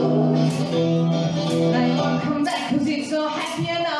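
Live band music: electric guitar chords with held notes, joined about two and a half seconds in by women's voices singing over a beat.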